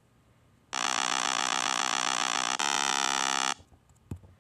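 Electronic buzzer sound effect: a harsh steady buzz for about two seconds switches abruptly to a different steady buzzing tone for about a second, then cuts off. A brief low thud follows near the end.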